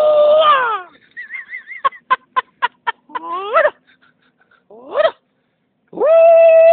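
High-pitched human cries: a long held cry that slides down at its end, a short wavering call, a quick run of clipped yelps about four a second, two short rising yelps, and near the end another long held cry falling away.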